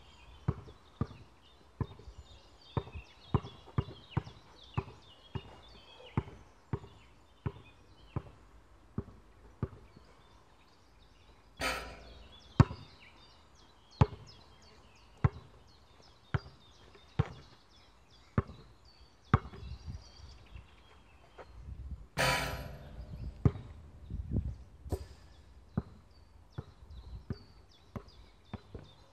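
A basketball being dribbled on an outdoor hard court: sharp bounces at a steady pace of somewhat more than one a second. Two louder, longer crashes come about twelve and twenty-two seconds in. Birds chirp faintly in the background.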